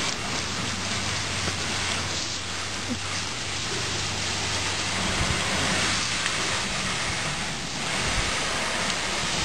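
Water spraying steadily from a hose onto a car: an even, rain-like hiss. A low steady hum sits beneath it for about the first half.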